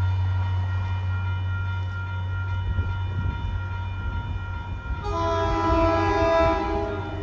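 MBTA commuter rail diesel locomotive approaching the station, with a steady low engine rumble. About five seconds in, its multi-note horn sounds one chord that holds for about two seconds.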